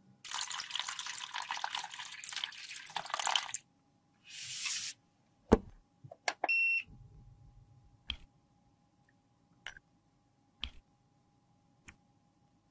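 A crackling hiss for about three and a half seconds, then a shorter hiss and a click. Next comes a short electronic beep from a UV sterilizer box as its button is pressed, followed by a few light ticks.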